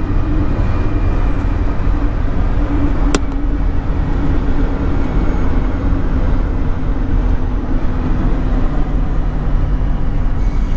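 Car driving on the road: a steady low rumble of engine and tyre noise, with one sharp click about three seconds in.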